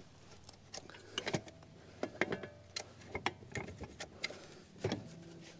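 Metal clicks and clanks of a PTO driveshaft yoke being shoved and twisted onto a tractor's PTO stub while its locking collar is squeezed. They come irregularly, several with a short metallic ring, the loudest about two seconds in and near the end.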